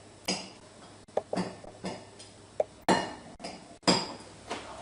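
A run of sharp knocks and clicks from hard objects being handled, the loudest about three and four seconds in, with two short ringing clinks among them.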